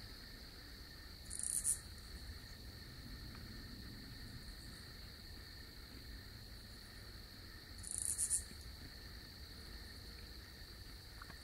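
Night insects, likely crickets, keep up a steady high trill. Two short, louder high hisses come about a second and a half in and again about eight seconds in.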